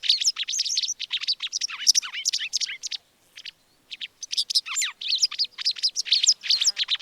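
White wagtail calling: a fast run of high, sharp chirps and twitters, with a pause of about a second around three seconds in before the chirping resumes.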